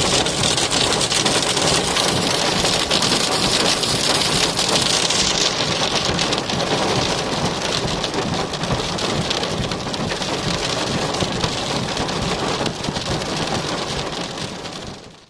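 Heavy hail hitting a car in a dense, fast patter of small impacts. It eases slightly about a third of the way through, then fades out quickly at the end.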